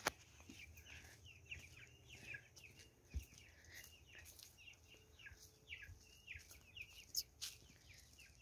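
Young chicks peeping faintly, a steady run of short falling cheeps, with one low thump about three seconds in.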